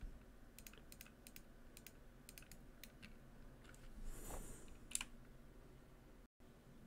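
Faint, scattered clicks of a computer mouse and keyboard, with a brief soft noise just after four seconds in and a sharper click about a second later.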